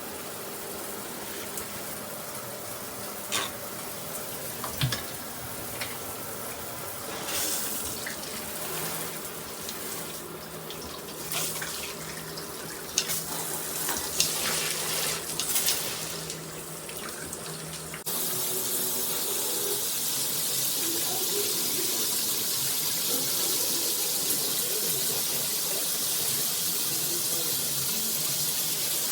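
Water spraying from a Tudoccy rainfall/handheld shower head, with scattered clicks and knocks in the first part. About two-thirds of the way through, the spray turns louder and steady.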